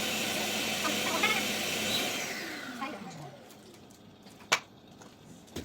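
Vacuum cleaner running while drawing the air out of a vacuum storage bag, then switched off about two seconds in and winding down with a falling whine. A sharp click comes about a second later, and another at the very end.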